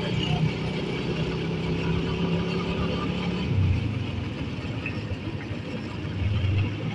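Vehicle engine running steadily while riding through street traffic, its low hum swelling briefly about halfway through and again near the end.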